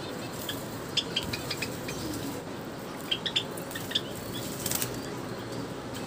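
Java sparrow bathing in a shallow water bowl, splashing and fluttering its wings, with a few short, sharp high chirps or splashes in clusters about a second in and around three seconds in.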